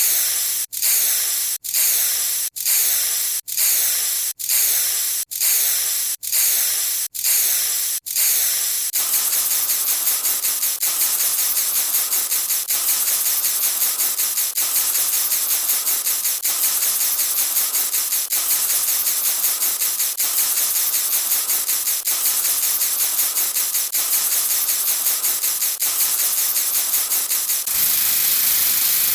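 A repeated spray-like hiss sound effect, one short burst about every second for the first nine seconds. The bursts then come rapidly, several a second, running almost together, and give way to one unbroken hiss shortly before the end.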